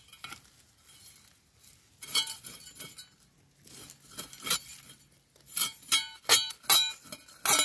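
A series of sharp clinks of hard objects striking, each with a short ringing tone. They are sparse at first, with one loud clink about two seconds in, then come quicker and louder in the second half.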